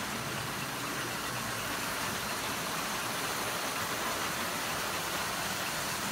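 Several American Flyer toy trains running together around a layout: a steady whir of their motors and wheels on the track.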